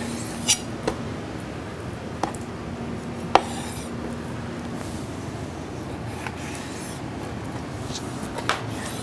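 Kitchen knife cutting a raw chicken breast on a wooden chopping board: a few sharp knocks of the blade on the board, the loudest a little past three seconds in. A faint low steady hum runs under the first half and stops about halfway.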